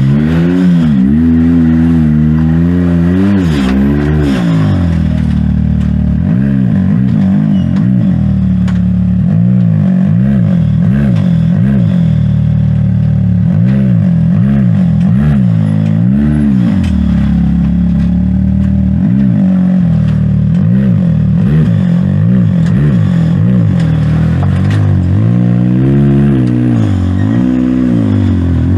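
Side-by-side UTV engine revved up and down over and over, the revs rising and falling every second or two and holding steadier through the middle, typical of a machine working its way up a rocky waterfall climb.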